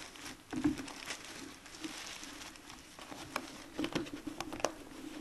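Scattered light taps and rustles, about one every second or so, over a faint steady hum.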